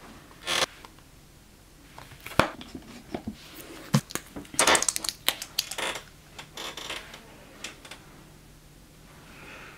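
Small clicks, taps and rustles from a makeup brush and a plastic eyeshadow palette being handled, with a dense cluster of quick taps about halfway through.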